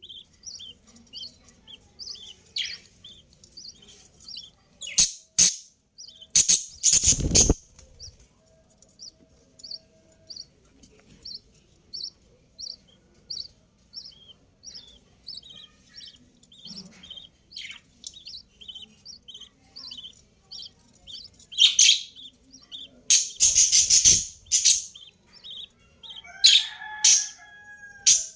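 Budgerigars chirping: a long run of short, high, evenly spaced chirps, broken several times by loud sudden bursts of noise.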